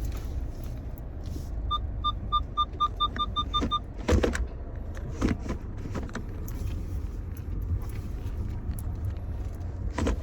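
Car cabin rumble while driving, with about ten electronic beeps that speed up over two seconds, like a parking-sensor proximity warning as the car closes on another vehicle, followed by a few short knocks.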